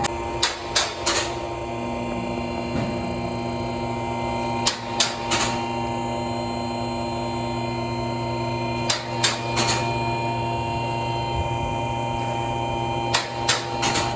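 Electric-hydraulic vehicle lift running with a steady motor-pump hum, raising the car. Short groups of sharp metallic clicks come about every four seconds.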